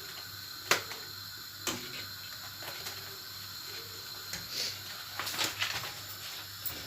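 Light kitchen handling noises: two sharp clicks about a second apart near the start, then scattered faint knocks over a low steady hum.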